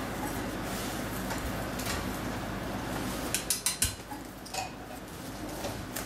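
Cockatiel clambering in its wire cage: a quick run of about four sharp metallic clinks a little past halfway, then a few softer knocks, over a steady low hum.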